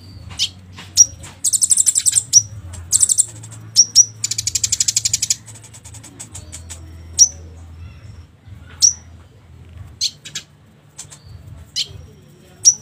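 Konin songbird calls, played as a lure: short sharp chirps repeated every second or so, and three rapid buzzy trills in the first half, the longest about a second long, over a faint steady low hum.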